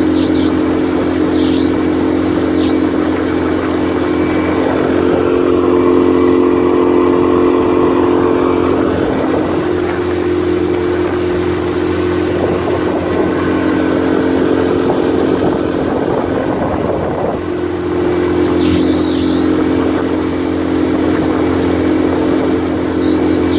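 Yamaha 9.9 hp four-stroke outboard running steadily under way, its two-cylinder engine note holding an even pitch. For several seconds in the middle, a rushing noise swells and partly covers the engine before it comes back clearly.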